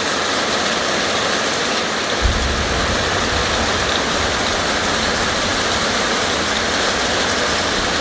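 Heavy rain pouring steadily in a thunderstorm, with a deep rumble of thunder setting in suddenly about two seconds in and rolling on more weakly.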